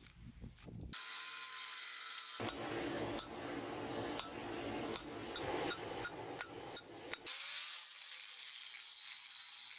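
Metalworking on steel from a coil spring: a run of sharp metal strikes, a few a second, through the middle, then an angle grinder's cut-off disc hissing through the steel near the end.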